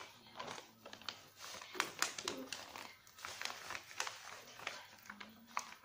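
Newspaper kite paper crinkling and crackling in irregular sharp rustles as it is handled.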